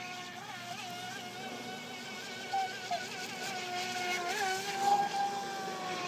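Small electric motor of an FT007 mini RC speedboat running with a steady high whine, its pitch wobbling briefly now and then. A few short louder bursts come about two and a half, three and five seconds in.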